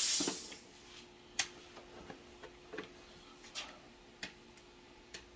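A hissing noise cuts off in the first half-second. Then come a few light, separate clicks and taps, roughly one a second, over a faint steady hum.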